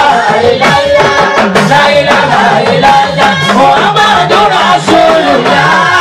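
Live Islamic gospel music: a man singing into a microphone over a loudspeaker system, backed by a talking drum and other hand percussion.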